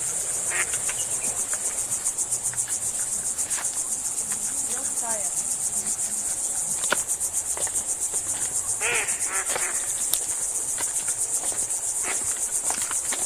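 A dense, steady chorus of forest insects: a high, rapidly pulsing trill. Scattered short clicks and a brief call about nine seconds in sound over it.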